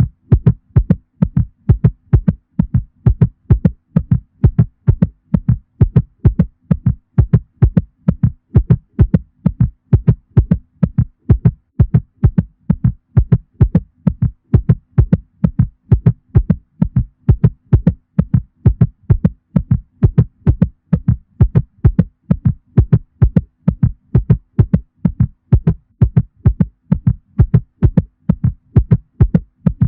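Cat heartbeat sound effect: deep lub-dub double thumps in a steady, fast rhythm, with a faint steady hum underneath.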